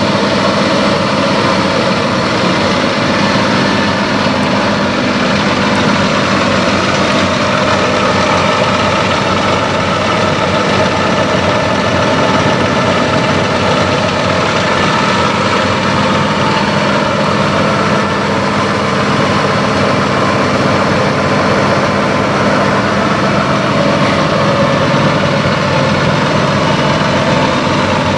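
Semi truck's diesel engine idling with a steady, even hum.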